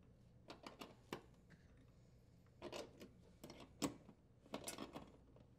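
Faint metallic clicks and scrapes of a half-inch wrench threading and tightening the nuts on a dishwasher heating element's terminals, in four short clusters, the sharpest click a little before the four-second mark.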